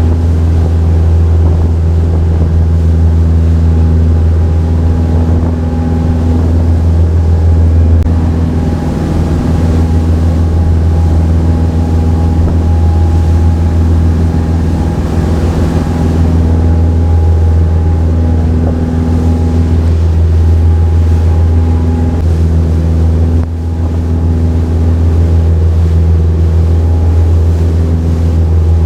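Charter fishing boat's engine running steadily under way, a loud, low, even drone.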